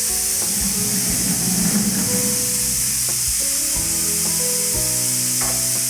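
Background music of held notes that change in steps, over a steady sizzling hiss.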